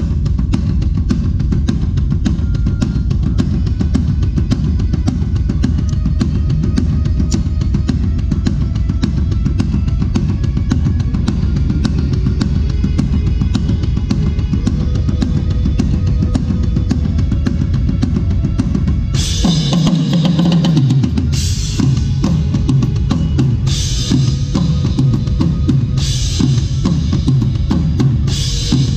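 Drum kit played in a steady groove of kick and snare. About two-thirds of the way in, crash cymbals come in, struck about every two seconds over the beat.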